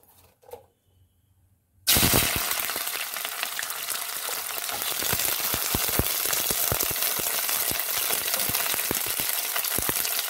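Near silence, then about two seconds in chopped drumstick (moringa pod) pieces drop into hot mustard oil in a stainless steel kadhai and start sizzling at once. A steady frying hiss follows, with many small crackles and pops.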